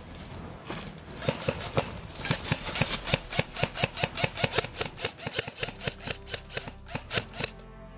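Airsoft rifle firing a rapid string of semi-automatic shots: sharp cracks about four or five a second, starting about a second in and stopping shortly before the end.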